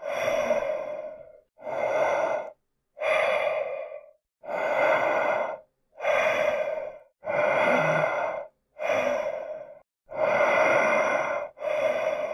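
Heavy, slow breathing, one long breath after another, about nine in all at an even pace of roughly one every second and a half.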